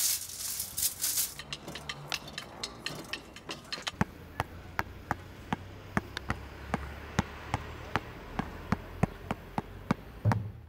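Basketball dribbled on a hard court: sharp bounces about two to three a second, slightly uneven, starting about four seconds in, over a low steady hum.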